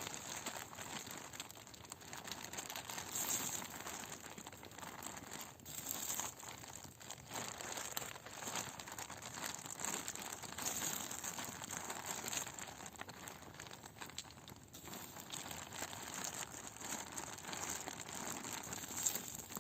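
Steady crackling and sizzling of food cooking over a campfire, most likely potatoes frying in a pan.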